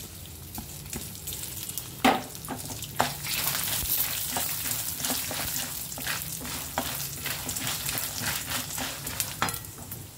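Tempering of dried red chillies, peanuts and lentils sizzling in hot oil in a kadai. A wooden spatula stirs it, scraping and knocking against the pan from about two seconds in.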